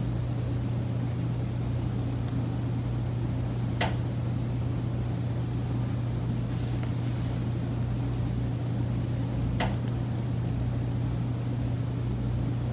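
Sharp knocks, two clear ones about six seconds apart, over a steady low hum: the recurring knocking noise in a high-rise condo unit, which the uploader says comes from the building's common elements.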